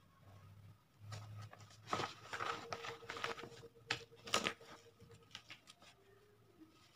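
Large sheets of paper rustling and crinkling as a folded handmade paper card is handled and opened, in a series of short, irregular rustles.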